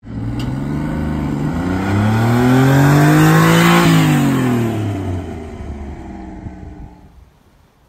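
Honda Acty Van Street's small three-cylinder E07A engine driving past: the engine note rises in pitch and grows louder as the van pulls closer, then drops in pitch and fades as it passes and drives away.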